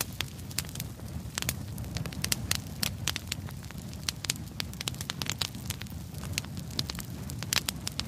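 Bonfire burning: wood crackling and popping in many irregular sharp snaps over a steady low rumble of the flames.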